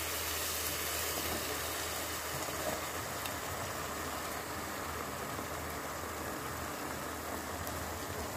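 Okra pieces and spiced onion-tomato masala sizzling in a hot kadai as they are stirred together with a wooden spatula. It is a steady hiss over a low, even hum, with a few faint ticks.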